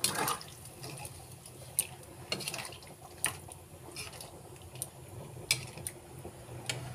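Watery potato and chickpea curry simmering in a steel pan on a gas burner, with scattered small pops of bubbles breaking over a low steady hum.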